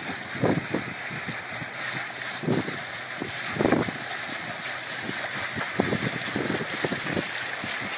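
Wind buffeting the microphone in irregular gusts over a steady rushing hiss.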